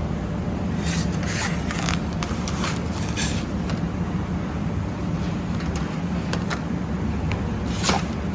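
Automatic fiber laser welding machine working with a steady low hum. Short hissing crackles come several times in the first few seconds and once more near the end.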